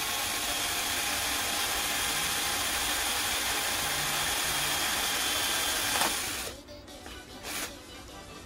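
A power tool runs steadily for about six seconds, a dense whirring noise with a few steady tones in it, then stops abruptly, leaving background music.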